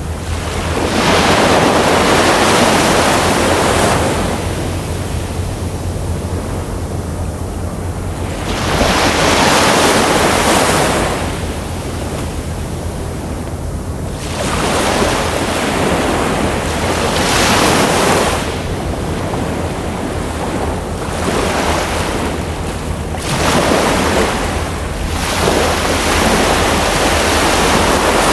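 Ocean surf, waves breaking and washing in, swelling and ebbing about every five or six seconds over a steady low rumble.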